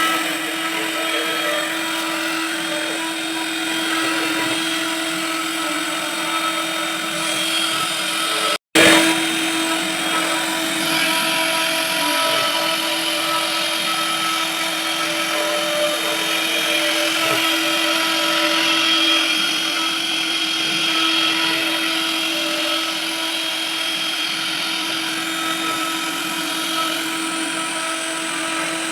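Servo-driven lathe machine running steadily, a constant hum with a high whine over a noisy rush, broken once by a brief drop-out about nine seconds in.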